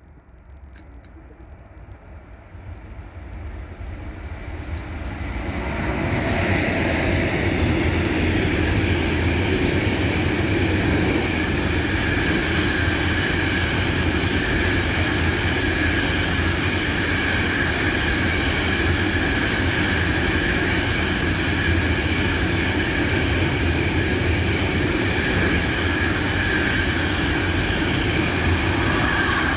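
Freight train approaching and rolling past: the rumble of its wheels on the rails grows louder over the first six seconds, then holds as a steady roar while the wagons go by.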